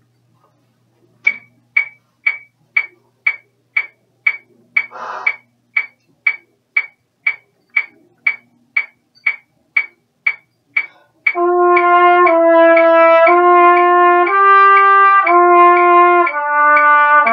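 A metronome ticks steadily about twice a second; about ten seconds in, a trumpet comes in playing a flow study, a lip-flexibility exercise of held notes stepping up and down in pitch, with the metronome still ticking beneath.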